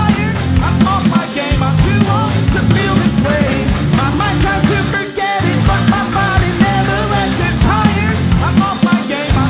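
Alternative rock band playing live: drum kit, electric bass and electric guitar, with the low end dropping out briefly about halfway through.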